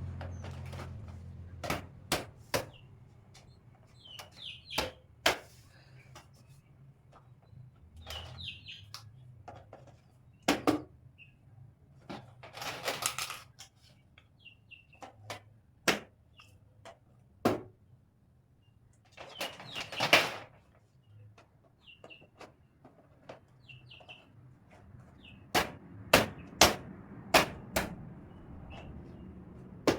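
Clicks and knocks of shoe-rack parts and shoes being handled and set in place, with two longer scraping or rustling sounds and a few small squeaks. The knocks come irregularly, several in quick succession near the end.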